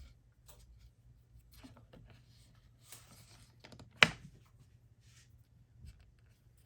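Faint rustling and light tapping of a leather strap, thread and hand tools being handled as hand-stitching gets under way, with one sharp click about four seconds in.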